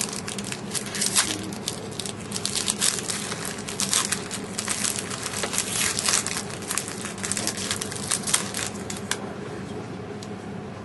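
Trading-card pack wrappers crinkling and crackling as packs are torn open and handled, irregular and dense, dying away about nine seconds in.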